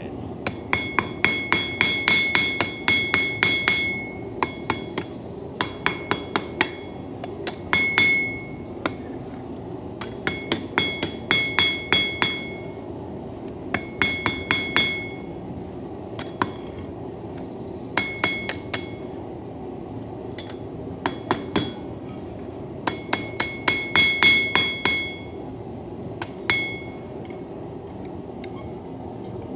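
Blacksmith's hammer striking a coil-spring steel knife blade on the anvil, in quick runs of blows separated by short pauses, each blow leaving a bright metallic ring. A steady low noise runs underneath.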